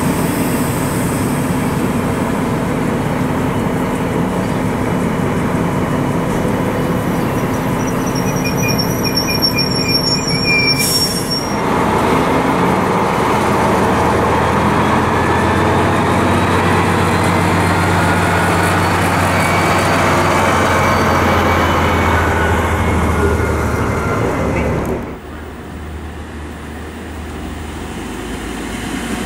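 Intercity coaches rolling past, with short high-pitched wheel squeals about eight to eleven seconds in. Then a DB Class 218 diesel-hydraulic locomotive runs with a steady low engine drone. The sound drops abruptly about twenty-five seconds in, and a Class 612 diesel railcar grows louder as it approaches near the end.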